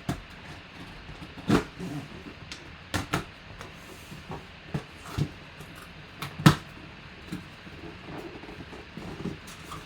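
A mini-helmet box and its packaging being handled and opened by hand: scattered knocks, clicks and rustles, the loudest a sharp knock about six and a half seconds in.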